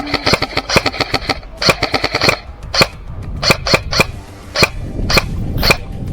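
Airsoft guns firing: a rapid string of shots, then another quick burst about two seconds in, then single shots spaced out.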